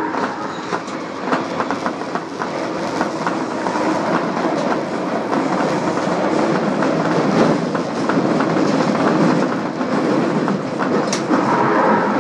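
Osaka Metro Tanimachi Line subway train running at speed: a steady rumble of wheels on rail, with rapid clicks as the wheels pass over rail joints.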